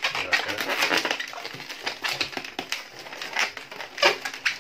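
Long latex modelling balloons squeaking and rubbing against each other as they are twisted and bent by hand, a continuous crackling squeak.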